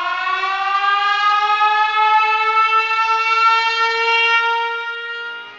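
Air-raid siren winding up: one long tone rising in pitch, levelling off, then fading out near the end.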